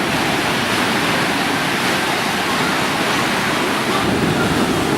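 Steady rushing water: an even, unbroken wash of noise.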